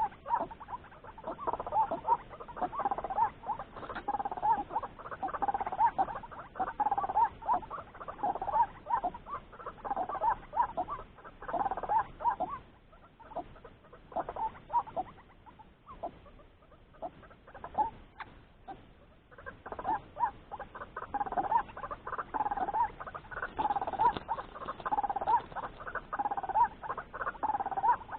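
White-breasted waterhen's repeated croaking "kruak" calls, about two notes a second, dying down for several seconds in the middle and then resuming.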